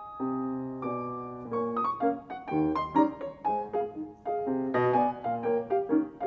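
A grand piano played solo: a chord held through the first second and a half, then a run of shorter chords and notes.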